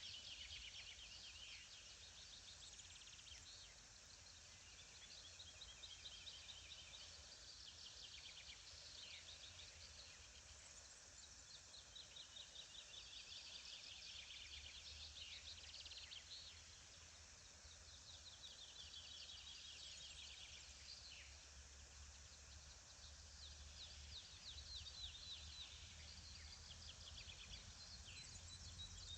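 Songbirds singing faintly: rapid trilled phrases of a second or two each, repeated every few seconds, over a faint low rumble.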